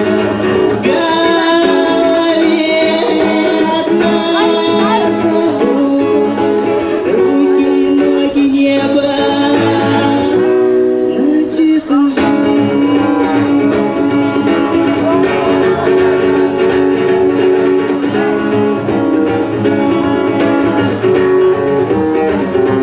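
A song sung to acoustic guitar: a voice singing over a plucked and strummed guitar accompaniment.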